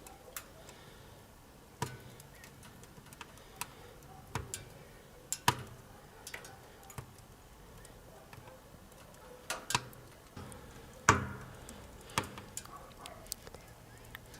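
Irregular sharp cracks and ticks from a Bereg 'Kamin' tent wood stove burning low, its air intake closed down to a single row of holes so the wood barely smoulders. The loudest crack comes about eleven seconds in.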